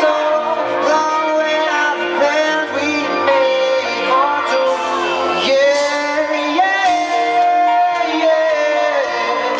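Live band music with sung vocals: a pop-rock band playing, with a singing voice sliding between held notes.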